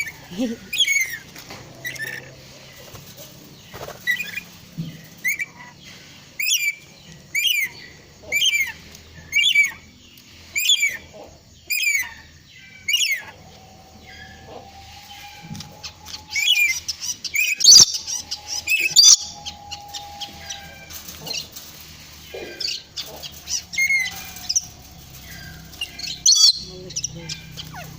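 Nuri (lory parrot) calling with a long run of short, sharp chirps, about one every 0.7 seconds, then a denser, louder burst of calls partway through. A steady mid-pitched tone runs under the calls through the middle of the stretch.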